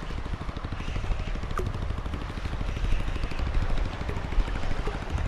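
An engine running steadily with a fast, even pulsing beat.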